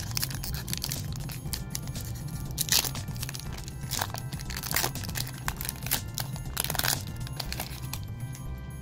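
Foil Pokémon TCG booster-pack wrapper crinkling and crackling in irregular bursts as it is handled and crumpled and the cards are pulled out, over light background music.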